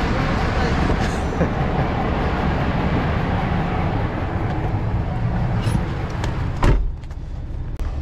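Semi truck's diesel engine running with a steady low rumble. Near the end comes one sharp knock, then the sound drops quieter for about a second before the rumble comes back.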